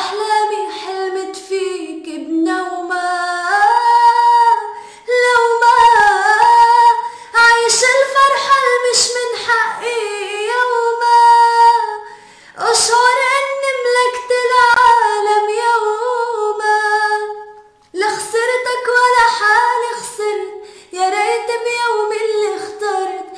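A woman singing unaccompanied in Arabic, in long ornamented lines that slide between notes. She pauses briefly about twelve and eighteen seconds in.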